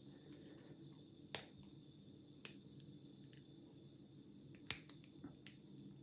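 A handful of small, sharp clicks spread irregularly over a few seconds, from prying at the circlip on the end of a euro cylinder lock; the loudest comes about a second and a half in.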